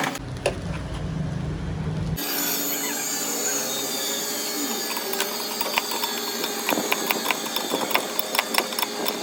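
A low hum that cuts off about two seconds in, then a steady rasping or scraping of a hand or power tool working metal, with scattered clicks and taps.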